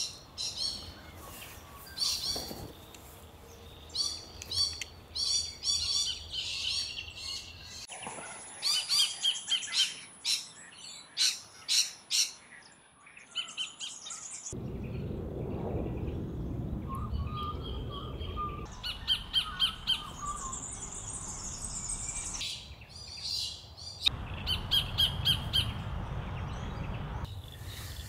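Sacred kingfishers calling: runs of sharp, rapidly repeated high notes, several a second, again and again. A low rumble comes in under the calls twice in the second half.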